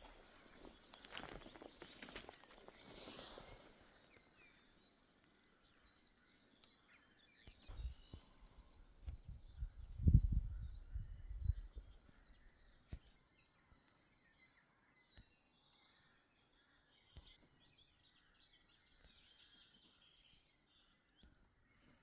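Small birds chirping and singing in woodland, with footsteps in the first few seconds and a few low rumbles, the loudest about ten seconds in.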